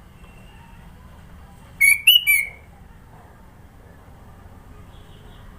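A sooty-headed bulbul (kutilang) gives a quick burst of about three loud whistled notes, just under two seconds in, over a low background hum.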